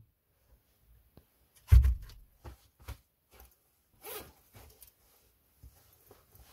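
A wooden plank door thumps shut about two seconds in. About four seconds in comes a short rasp as a jacket zipper is pulled open, followed by the rustle of the jacket being taken off.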